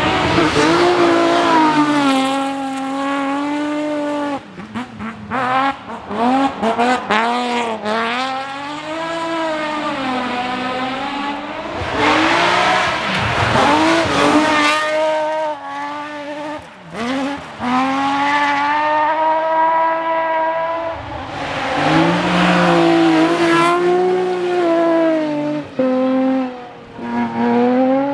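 BMW rally car engines at full throttle on a closed stage, the revs climbing and dropping again and again through gear changes and lifts. The loudest passes come at the start, about twelve seconds in and about twenty-two seconds in.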